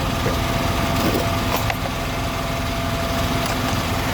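A small engine running steadily, with a fast, even low throb and a faint steady hum over it.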